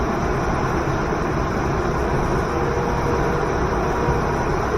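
A waterfall and river rushing steadily, one even sound with no breaks.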